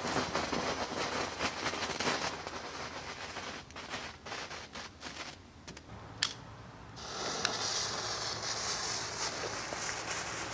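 Small novelty ground firework fizzing, then a run of sharp crackles and a loud snap about six seconds in, after which a steady rushing hiss returns.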